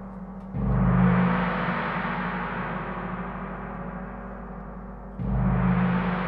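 A large gong struck twice, about four and a half seconds apart. Each stroke swells into a loud wash of sound that fades away slowly.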